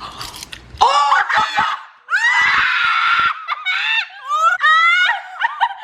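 Young women shrieking and screaming: short cries about a second in, a long high scream, then a run of short rising wails, their reaction to the burn of a very hot pepper just eaten.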